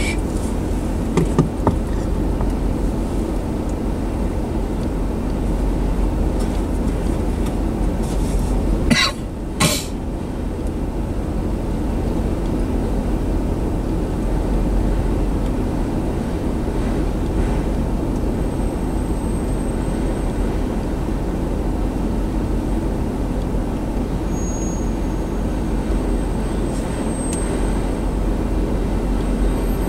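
Autorack freight cars rolling past: a steady rumble of steel wheels on rail, with two sharp knocks about nine seconds in.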